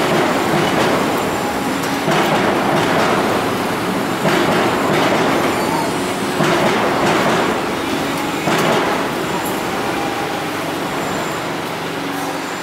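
Loud, steady rumbling background noise of a busy covered market, with a few sharper knocks about two seconds apart.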